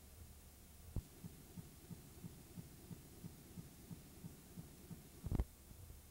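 Dead audio track of an old VHS tape transfer: faint hiss and hum with a soft low thump about three times a second. There are two sharp clicks, one about a second in and a louder one near the end, as the tape glitches.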